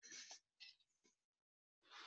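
Faint crinkling of a Quest protein cookie's plastic wrapper being handled, in short rustles, pausing briefly just past halfway before starting again near the end.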